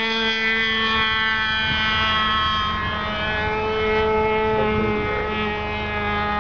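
Tower .75 two-stroke glow engine of an RC airplane in flight, turning a 12x6 propeller: a steady, high-pitched buzz whose pitch wavers only slightly as the plane passes overhead.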